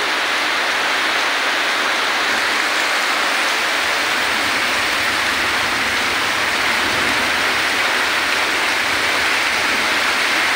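Torrential rain pouring down steadily, a dense, even hiss of water striking the ground.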